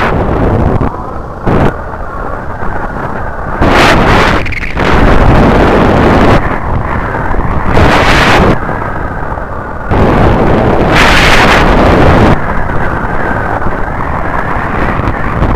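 Yamaha Byson motorcycle running as it is ridden, with heavy wind buffeting on the action camera's microphone; louder gusts of wind noise come and go every few seconds.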